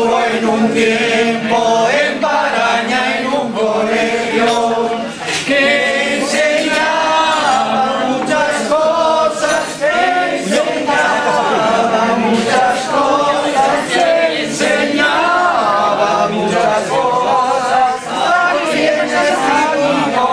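A large group of people singing a song together, many voices at once, without a pause.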